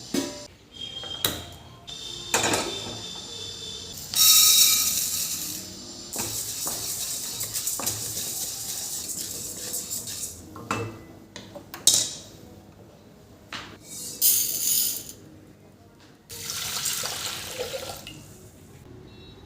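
Kitchen sink work: a tap run in several short spells, with dishes and utensils knocking and clinking in between.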